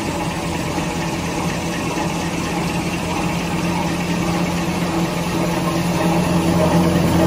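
Automatic toilet-roll converting line with lamination running: a steady machine hum with a low drone, the paper web running over the rollers, growing a little louder near the end.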